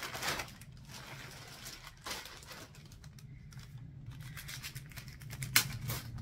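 Rustling and crinkling of a gift bag and its wrapping as small items are handled and taken out, with a sharp click about five and a half seconds in, over a steady low hum.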